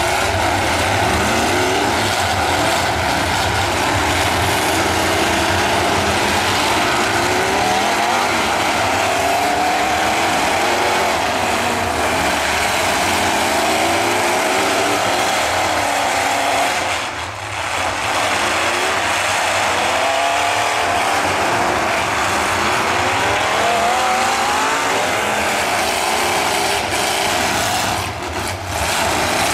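Several demolition derby trucks' engines revving up and down at once, a continuous mix of overlapping rising and falling engine notes over dense noise.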